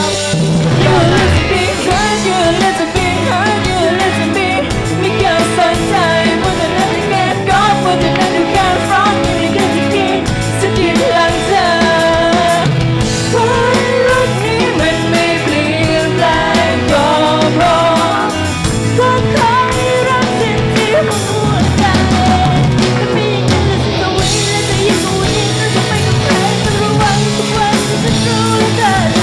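Live band playing loud music on drum kit, electric guitars and keyboards, with a voice singing over it.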